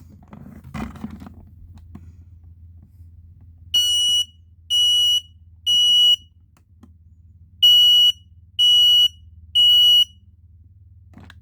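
Kidde 0916 smoke alarm sounding on test: two rounds of three shrill, steady beeps in the temporal-three evacuation pattern, from the lower-pitched of the two 0916 units.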